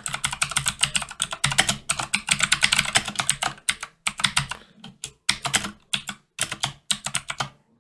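Typing on a computer keyboard: a fast run of keystrokes for about four seconds, then slower, scattered keystrokes.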